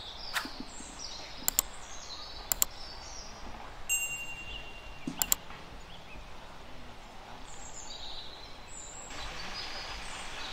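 Birds chirping over a steady outdoor background, overlaid with the sound effects of a subscribe-button animation: three quick double mouse clicks and a short bell-like ding about four seconds in.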